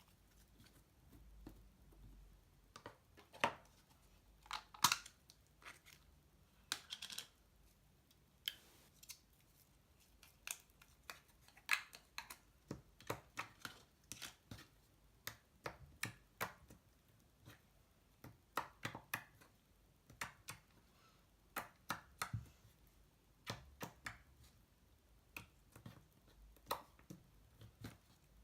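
Slime being squeezed and poked by hand, giving off irregular sharp clicks and little pops, a few every second.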